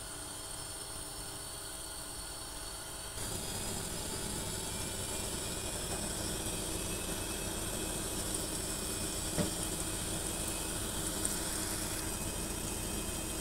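Sliced onions sizzling in hot oil in a frying pan, a steady hiss that gets suddenly louder about three seconds in, with a single light tap about two-thirds of the way through.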